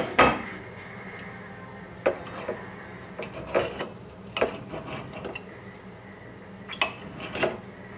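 Plates and a metal spoon clinking and knocking as dishes are set down and handled on a counter: about eight separate sharp clinks spread over several seconds, over a faint steady hum.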